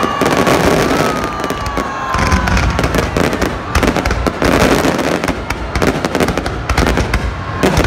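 Aerial fireworks shells bursting overhead: a dense, irregular run of bangs and crackling. A single whistle slowly falls in pitch during the first two and a half seconds or so.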